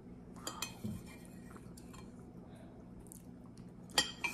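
Metal spoon clinking against a glass mixing bowl: a few soft knocks about half a second in, then a sharp clink near the end as the spoon goes back into the bowl. Quiet chewing between.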